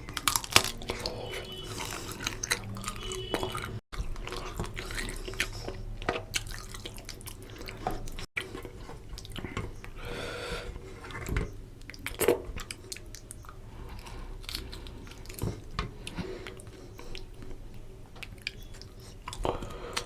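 Close-miked eating sounds: chewing and wet mouth clicks while eating fish curry with rice, in a run of short irregular smacks.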